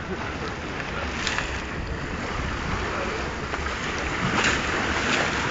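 Wind buffeting the microphone: a low rumble under a steady, even rush of noise.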